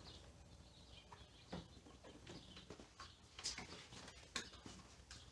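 Near silence: room tone with a few faint clicks and taps.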